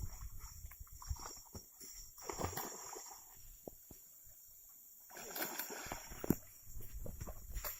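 Water splashing and sloshing in two irregular spells, about two seconds in and again about five seconds in, with scattered knocks between them.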